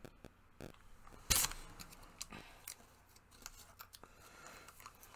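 A plastic dipping-sauce cup being handled and its foil lid peeled back: small crinkles and clicks, with one louder brief rustle about a second and a half in.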